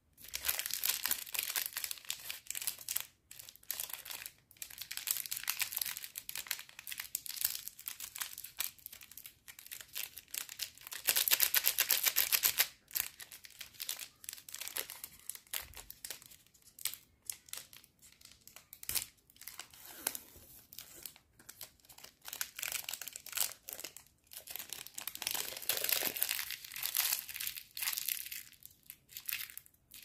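The plastic wrapper of a Milky Way chocolate bar being crinkled and torn open by hand: an uneven, continuous rustling and crackling, with a louder stretch of crackling about eleven seconds in.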